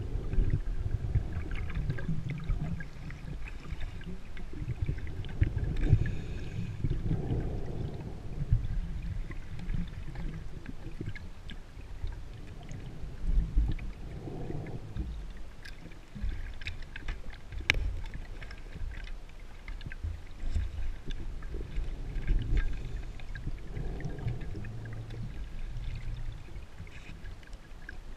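Underwater breathing of a scuba diver: exhaled bubbles from the regulator rumbling and gurgling in swells every few seconds, with a few faint clicks.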